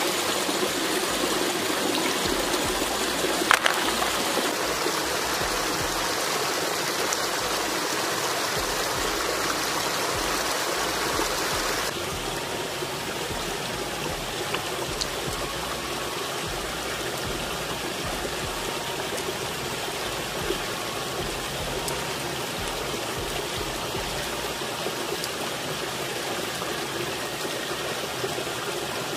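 River water flowing over stones, a steady rushing that drops a little in level about twelve seconds in, with a single small knock early on.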